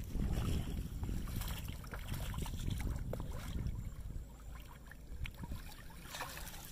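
Wind noise on the microphone, with small splashes as a hooked fish thrashes at the surface near the bank, and water splashing as a landing net is dipped in and lifted out near the end.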